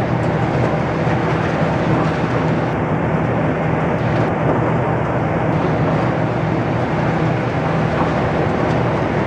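High-reach demolition excavator running with a steady low drone from its engine and hydraulics as its crusher works at the concrete of a tower block, under a continuous noisy wash.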